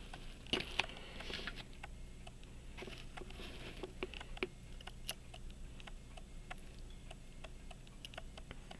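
Faint, irregular small clicks and taps of hand tools working on a pocket watch movement, with a few brief soft rustles.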